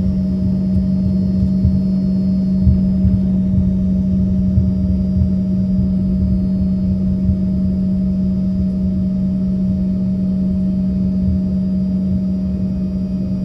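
Cabin noise of an Embraer ERJ-135 regional jet taxiing, heard from a window seat: its rear-mounted turbofans and onboard systems make a steady low-pitched hum over an uneven low rumble.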